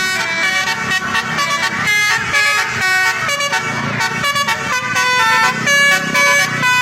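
Tour bus's 'telolet basuri' musical horn playing a quick, continuous run of changing horn notes like a melody, over a low hum.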